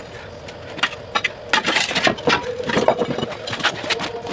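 A shovel scraping and knocking against a concrete paver and packed soil: a string of irregular sharp strikes and scrapes, starting about a second in, over a steady machine hum.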